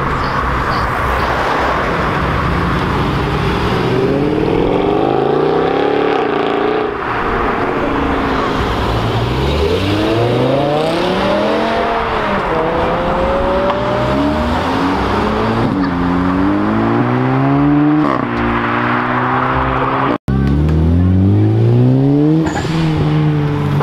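Several performance cars accelerating hard one after another, their engines revving up through the gears in repeated rising sweeps. There is an abrupt cut-out about twenty seconds in.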